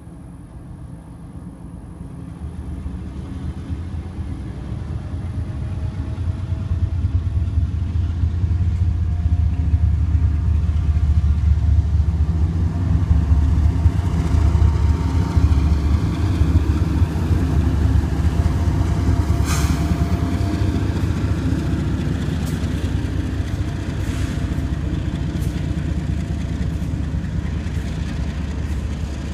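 Union Pacific diesel locomotives approaching and passing, their engines' low rumble building over the first ten seconds and then holding steady, with one sharp clank about twenty seconds in.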